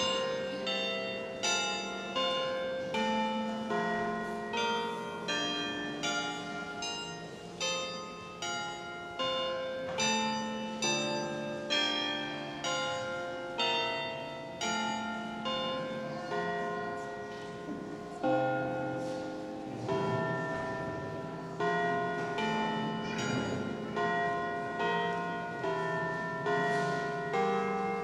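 Bells ringing a tune: a steady run of separate struck notes, each ringing out and dying away as the next is struck.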